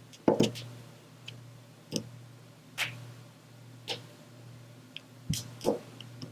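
A diamond-painting drill pen pressing resin drills onto the sticky canvas: a string of sharp, irregular clicks and taps, about eight or nine, spaced roughly half a second to a second apart.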